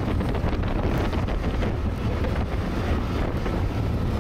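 Wind buffeting the camera microphone, over the steady rushing of an inflatable rubber raft being towed across snow.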